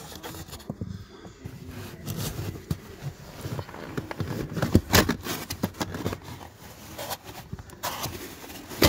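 Hands working loose the Audi A4 B8's plastic footwell trim panel under the dashboard: a run of plastic clicks, knocks and rustles, the loudest about five seconds in and another sharp one near the end.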